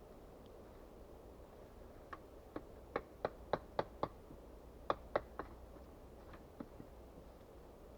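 A quick, irregular series of light, sharp knocks or taps, about a dozen, bunched between about two and seven seconds in.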